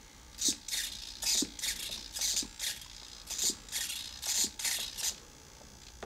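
Small servos in a radio-controlled Cessna 182 model plane whirring in a dozen or so short bursts over about five seconds as the transmitter sticks move the wing control surfaces back and forth.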